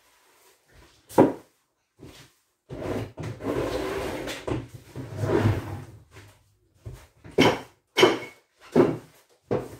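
Clunks and knocks from a front-loading washing machine door as a child handles it: one knock about a second in, a few seconds of continuous noise in the middle, then four sharp clunks in quick succession near the end.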